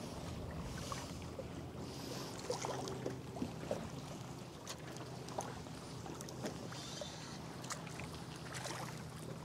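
Quiet sloshing of water against a boat, with faint scattered splashes and ticks as a hooked black drum is played near the surface, and a faint steady low hum underneath.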